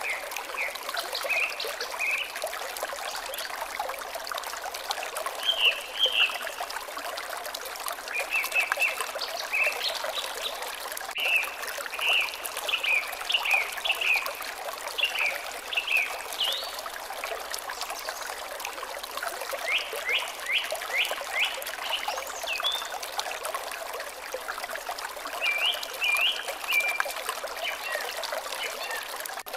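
Water trickling steadily, with small birds chirping in short runs of quick high notes over it throughout.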